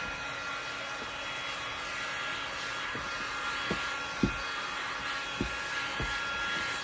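Handheld electric heat gun running, its fan blowing a steady hiss with a faint whine in it while it heats vinyl upholstery to soften it. A few soft low knocks come and go under the hiss.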